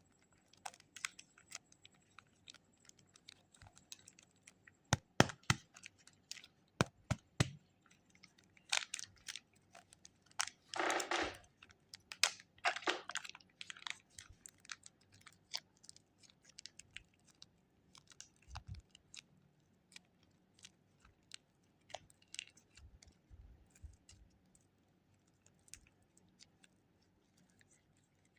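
Packets of super clay being handled and opened: scattered sharp clicks and taps, with a louder stretch of crinkling and tearing plastic wrapper about ten to thirteen seconds in.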